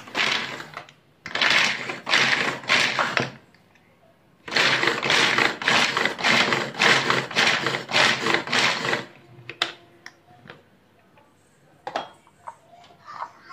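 Wonderchef pull-cord manual chopper chopping almond pieces and dried grapes. The cord is yanked about twice a second in two runs, a short one and then a longer one, and the blades whir round in the plastic bowl with each pull. A few sharp clicks follow near the end.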